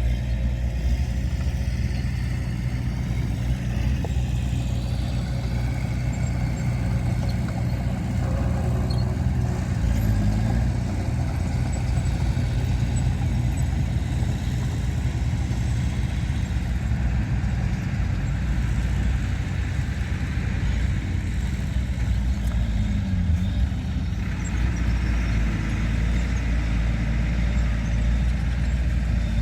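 Heavy diesel earthmoving machinery running steadily under load, its engine note dipping briefly about ten seconds in and again a little after twenty seconds.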